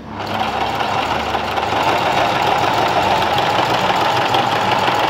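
Willpex WP653 household sewing machine starting up and running steadily at speed, stitching fabric onto a zipper.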